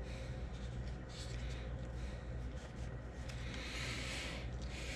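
Faint handling noise: tweezers and adhesive vinyl stencil pieces ticking and rustling against a plastic crankbait body over a steady low hum, with a short breathy hiss about four seconds in.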